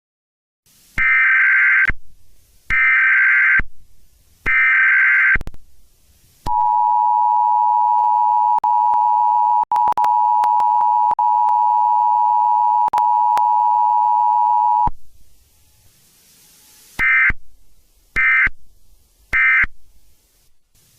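Emergency Alert System signal: three screeching data bursts of about a second each, then the steady two-tone attention signal held for about eight seconds, then three short data bursts marking the end of the message.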